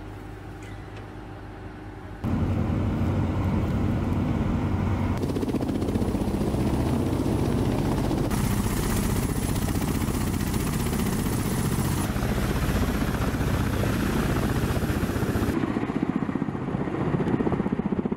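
Kamov Ka-52 attack helicopters running, their coaxial rotors beating steadily. The sound is fainter for the first two seconds, then much louder, and its character shifts abruptly several times as the clips change.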